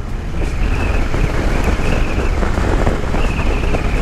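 Motorcycle engine running at road speed, a low steady rumble, with wind buffeting the microphone. A thin high-pitched whine comes in shortly after the start, fades a little past halfway and returns near the end.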